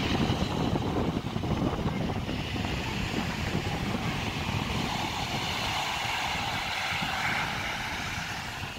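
Wind buffeting the microphone over the steady wash of ocean surf. The wind rumble eases after about five seconds, leaving mostly the surf hiss.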